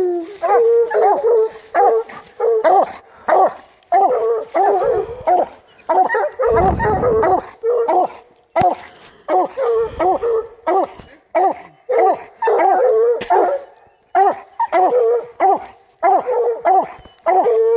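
Coonhound barking close by in quick repeated barks, about one and a half a second, without letup. A low rumble joins in for about a second roughly six and a half seconds in.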